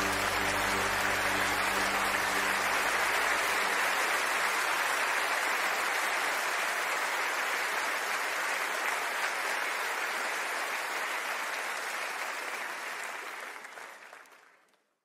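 The held last chord of a hymn dies away in the first few seconds under steady applause. The applause fades out near the end.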